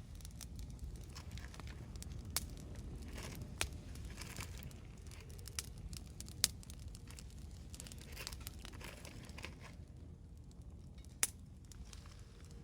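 Wood fire crackling, with a handful of sharp pops scattered over a low steady rumble.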